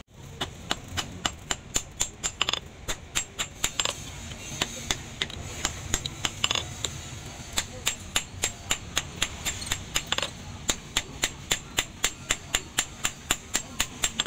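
Hammer blows on a red-hot axe head lying on a steel anvil: a steady run of sharp metallic strikes, about three a second, as the hot head is forged back into shape.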